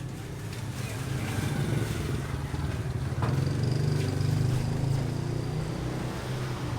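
An engine running steadily, growing louder over the first three seconds and then holding.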